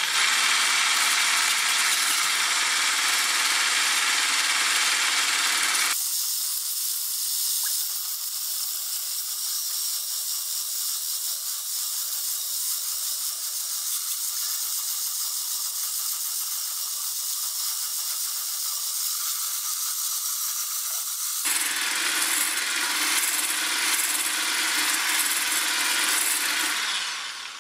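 Silvercrest SSMS 600 W hand blender running with its wire whisk attachment, beating egg whites into stiff foam in a stainless steel bowl: a steady motor whir with a hiss. The sound turns abruptly thinner and higher about six seconds in, becomes fuller again about twenty-one seconds in, and stops at the very end.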